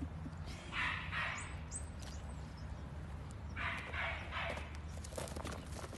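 A young dog making short breathy puffs while jumping up to be petted, in two groups of two or three quick puffs, about a second in and again about four seconds in.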